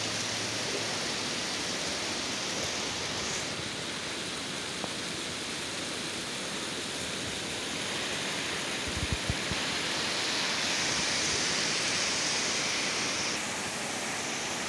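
Heavy rain pouring down in a steady, dense hiss, swelling for a few seconds past the middle. A few brief low thumps come about nine seconds in.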